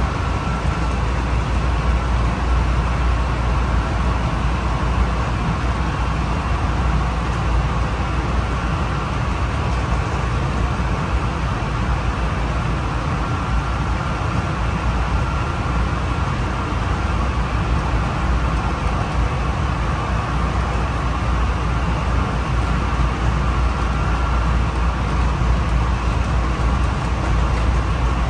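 Running noise of a Honolulu Skyline metro car in motion, heard inside the car: a steady low rumble of steel wheels on rail with a faint, wavering high whine running through it.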